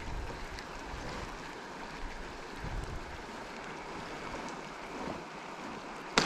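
Steady water and wind noise around a kayak on a river. Near the end comes a sudden sharp, loud hit, as a Murray cod strikes the topwater lure.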